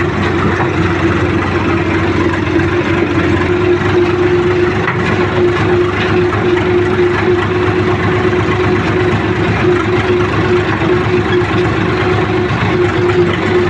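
Diesel tractor engine running steadily while the tractor drives along the road, with an even engine hum and a constant drone.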